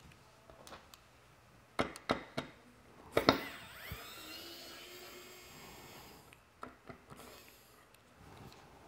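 Clicks and clacks of small metal parts being handled while a mini PC is taken apart, the loudest knock about three seconds in. A small electric screwdriver whirs for about three seconds after it, and two more clicks follow.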